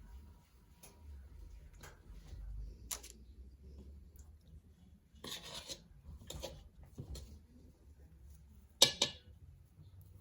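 Scattered clinks, scrapes and knocks of kitchen utensils while cookie dough is portioned out, with the loudest sharp clatter about nine seconds in.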